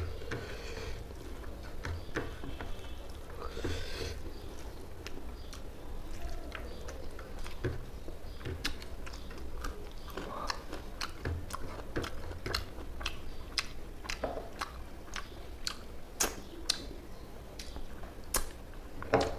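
A man chewing mouthfuls of rice and telkoi fish curry close to a clip-on microphone: wet chewing with many sharp mouth clicks and smacks, more frequent in the second half.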